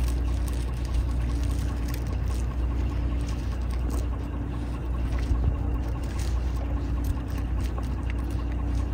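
A motor running steadily, a low hum with a faint droning tone that fades in and out, and scattered light clicks over it.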